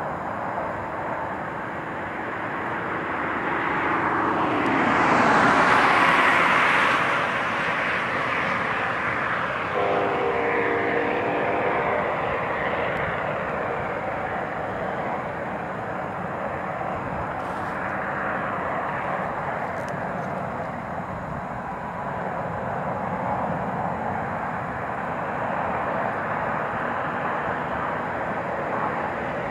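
Steady rumble of distant vehicles. It swells to a peak as something passes about five seconds in, and a short horn-like tone sounds about ten seconds in.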